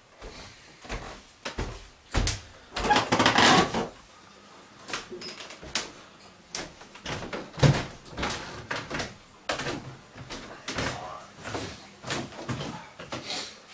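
Footsteps of a person walking through a house and down a staircase: a run of irregular thuds and knocks, with a louder scraping, rustling noise lasting about a second around three seconds in.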